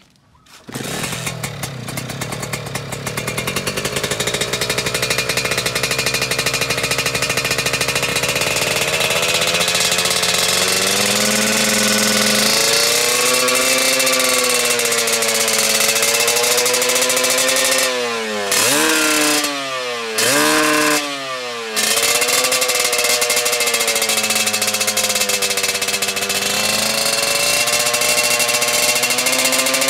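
Kawasaki Ninja two-stroke single-cylinder motorcycle engine running with no exhaust pipe or muffler fitted, giving a loud, raspy sound like a chainsaw. It comes in about a second in, its revs rise and fall repeatedly, and around two-thirds of the way through the revs drop sharply three times before picking up again.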